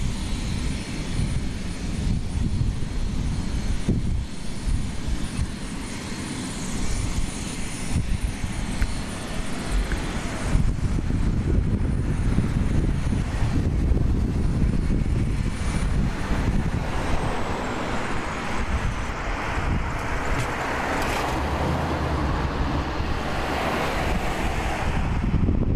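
Police helicopter running on the ground: a steady, continuous engine and rotor noise.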